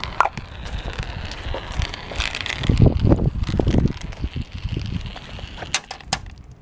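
Marbles rolling and clicking along a plastic Hot Wheels track, over a low rumble that is strongest about three seconds in. A few sharp clicks come near the end as the marbles run off the end of the track.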